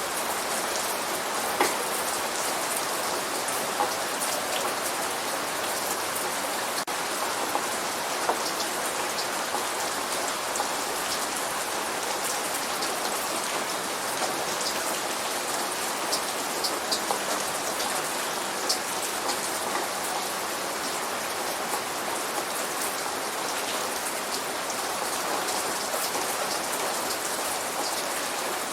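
Steady light rain: an even hiss of rainfall with scattered individual drops ticking close by. No thunder is heard.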